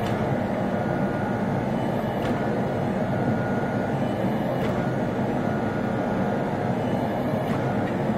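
The converted 8-ton log splitter's hydraulic pump and motor running steadily while its ram presses hot steel between drawing dies, with a few faint ticks.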